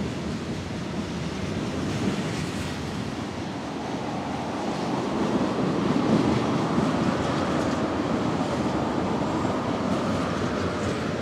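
Freight train rolling past, a steady rumble and rush of wheels on rail that swells a little in the middle, with faint clicks.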